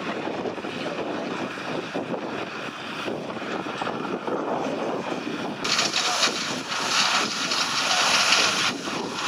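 A steady engine drone, then about five and a half seconds in a loud hiss of fire-fighting spray starts suddenly and runs for about three seconds, dousing a smouldering car fire.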